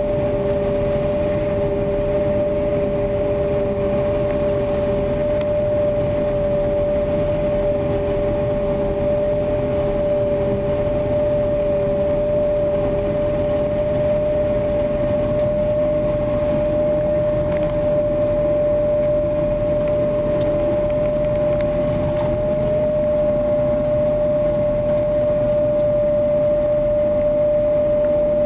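Maize-harvesting machinery running steadily: a constant engine rumble with a steady high hum over it. A second, lower hum fades out about halfway through.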